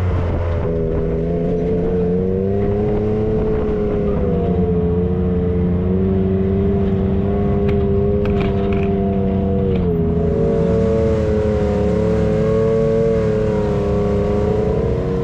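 Side-by-side UTV engine running as it drives along a dirt trail, heard on board, its pitch rising and falling gently with the throttle.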